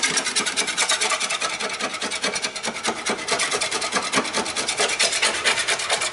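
A hand blade scraping and shaving half-set polyester body filler along the edge of a car's wheel arch: a fast, even rasping scrape. The filler has set but is still soft enough to cut.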